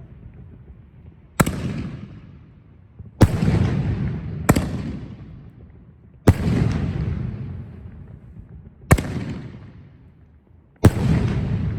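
Six loud booms from canister firework shells bursting in the air, one every one to two and a half seconds. Each boom is followed by a rumbling echo that dies away.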